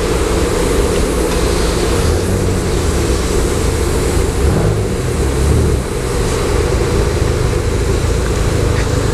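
Moving-floor conveyor car wash machinery running with a steady low rumble, a little heavier for a moment about halfway through.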